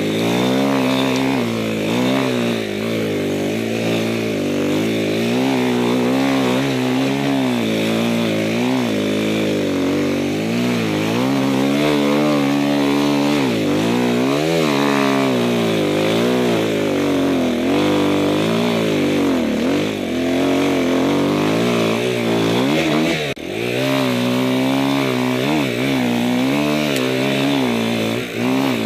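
Enduro motorcycle engine being ridden, its revs rising and falling constantly. The engine note dips for a moment about three-quarters of the way through.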